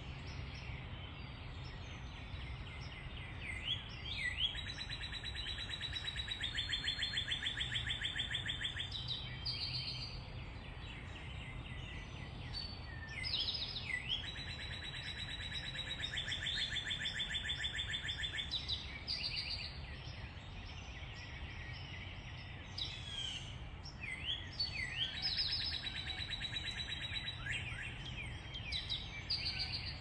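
Backyard birds chirping and calling, with three long, rapid, even trills of about five seconds each and short chirps and whistled sweeps between them. A low steady hum runs underneath.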